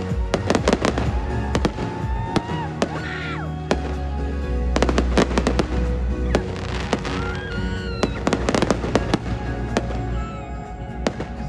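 Aerial fireworks going off in repeated volleys of sharp bangs and crackles every second or two, over a music soundtrack with held notes and heavy bass.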